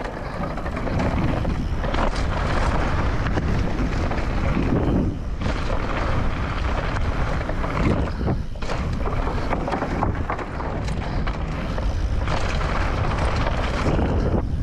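Mountain bike riding fast down a downhill trail over wooden boardwalk slats and dirt: steady wind rush on the camera microphone with tyre rumble and the rattle and knocks of the bike. It dips briefly a couple of times before picking up again.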